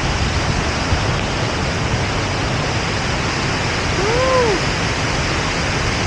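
Mumbuluma waterfall cascading close by: a loud, steady rush of falling water. About four seconds in, a short tone rises and falls briefly over it.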